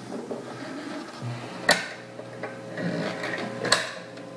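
BSR automatic record changer of a 1960s Tappo Kontact portable record player starting to cycle. Its induction motor comes on with a steady low hum about a second in, and the changer mechanism whirs and gives two sharp clicks about two seconds apart as the tonearm is brought onto the record.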